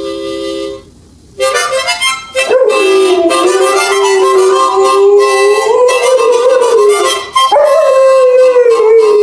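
A harmonica chord sounds briefly, then a dog howls along in long, wavering howls. There are two howls, and the second falls in pitch near the end.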